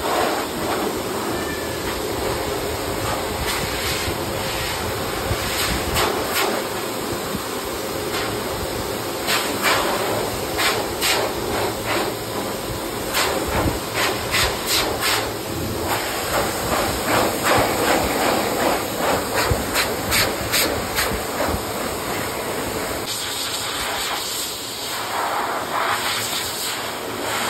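Pet hair dryer blowing a steady hiss of air over a cat's freshly trimmed coat, with repeated short scratchy strokes of a brush through the fur.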